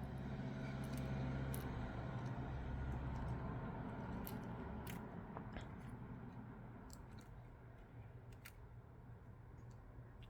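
Scattered small clicks and taps from handling and seating a replacement charging-port part inside an opened smartphone, over a low hum that fades about halfway through.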